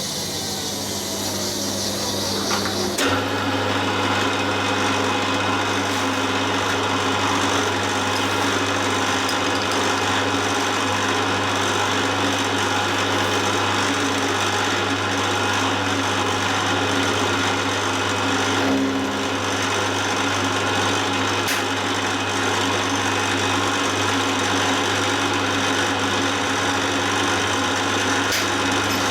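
Milling machine running steadily, a dense mechanical hum and whir; the sound steps up suddenly about three seconds in.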